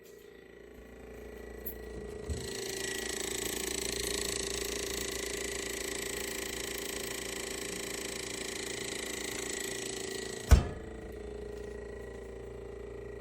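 A steady low mechanical hum with a faint steady tone. About two seconds in, a hiss rises and holds, then cuts off with one sharp knock about ten and a half seconds in.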